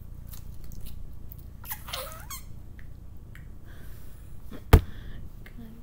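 Slime being squeezed and handled, with small sticky clicks and a short rising squeak about two seconds in. A single sharp thump near the end is the loudest sound.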